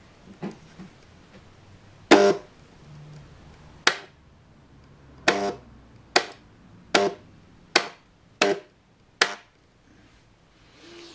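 Model railway point motor firing under the baseboard, snapping the point blades over with sharp clacks: about eight in all, the loudest about two seconds in, then one roughly every three-quarters of a second as it is thrown back and forth. The point changing cleanly each time shows the newly fitted motor is working.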